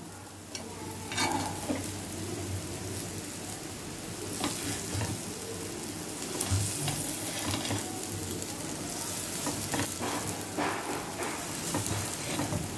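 Oil sizzling steadily around a rolled vegetable omelet on a hot iron tawa with the burner switched off, while a serrated knife cuts through the omelet and now and then ticks against the griddle.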